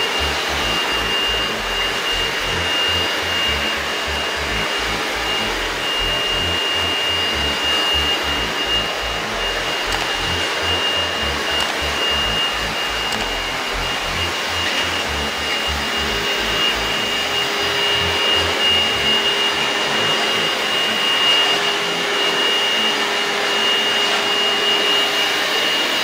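Geepas GVC2596 stick vacuum cleaner with its 600 W copper motor, running steadily while it is pushed over carpet. The rush of air carries a constant high-pitched whine.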